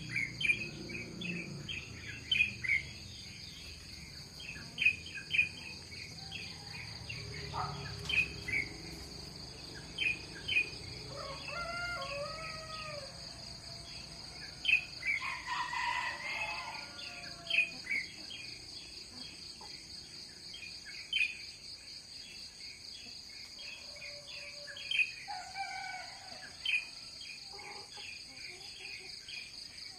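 Rural dawn chorus: a steady high-pitched drone of insects under frequent short bird chirps. A couple of longer rooster crows come in the middle.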